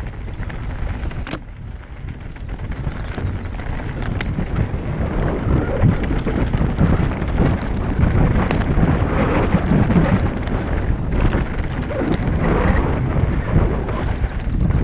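Mountain bike riding fast down a loose gravel and rock trail: tyres crunching and rattling over stones, with a few sharp clicks from the bike and steady wind buffeting the microphone.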